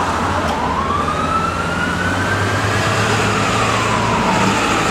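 Fire apparatus siren wailing: one slow wail rises over about two and a half seconds, falls away, and starts to rise again near the end, over the low steady hum of a running engine.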